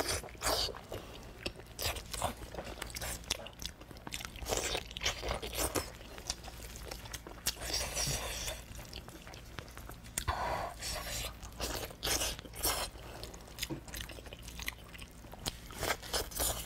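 Close-miked eating: biting into, tearing and chewing pig's trotter, with irregularly spaced sharp bites and wet mouth noises.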